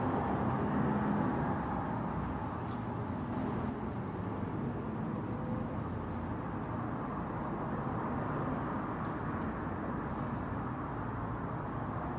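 Steady low background rumble, with two or three faint ticks.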